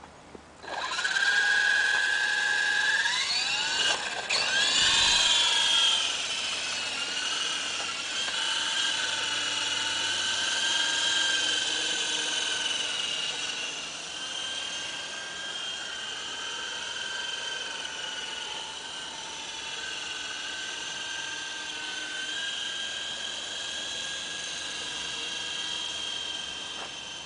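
Remote-controlled scale MD 530 helicopter spooling up: a high motor and rotor whine starts about a second in and rises steeply in pitch a few seconds later. It then holds a steady high whine with small changes in pitch as the helicopter flies.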